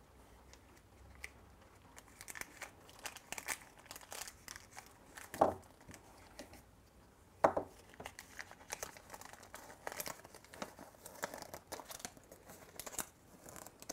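Crinkling and rustling of a Shopkins blind bag and its folded paper collector's guide being handled and unfolded, in many short crackles, with two louder crackles about five and a half and seven and a half seconds in.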